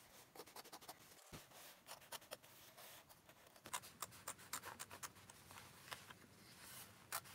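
Scissors cutting through denim along a jeans' inside leg seam: faint, irregular snips and scratchy crunches as the blades work through the thick cotton, coming thicker in the second half.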